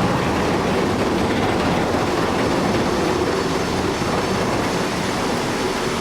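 Heavy machinery running: a steady, loud rumbling noise with a low hum underneath.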